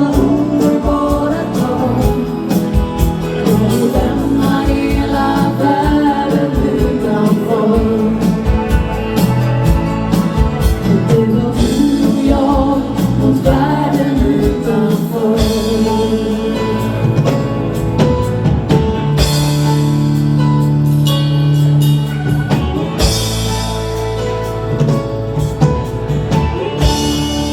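A live dance band plays dance music with a singer over a steady drum beat. About halfway through the drums mostly drop away, leaving held chords.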